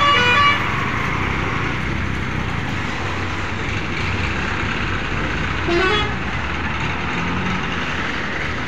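Highway traffic with heavy vehicles running and passing, and vehicle horns tooting: one horn ends about half a second in, and a short toot comes about six seconds in.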